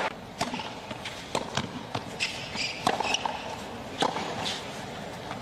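Tennis rally on a hard court: a serve, then rackets striking the ball back and forth, with short sharp pops every second or so over a low, steady crowd background.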